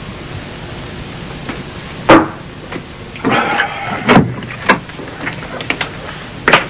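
Sharp knocks and clicks, the loudest about two seconds in and another just before the end, with a cluster of small clicks as a door latch is worked and the door opened.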